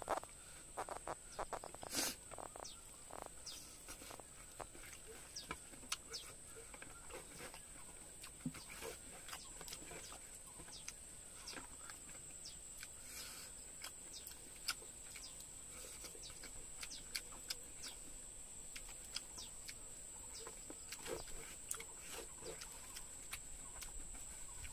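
Mukbang eating sounds: chewing and lip-smacking, heard as scattered short wet clicks, as chicken and rice are eaten by hand off a banana leaf. A steady high whine runs underneath.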